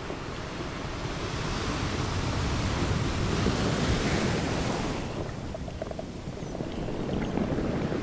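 Water noise picked up by an underwater camera just below the surface: a steady low rumble with a hiss that swells over the first few seconds and drops away about five seconds in.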